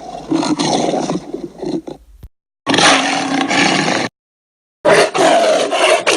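Tyrannosaurus rex roar sound effects: a roar trails off about two seconds in, then after a brief silence a shorter roar, and after another short silence a further roar begins near the end.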